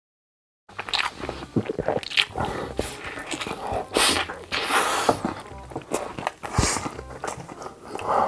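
Close-miked eating sounds of a man stuffing plain white rice into his mouth straight from the bowl, starting about a second in: wet chewing, smacking and gulping mouth noises with louder breathy swallows and gasps.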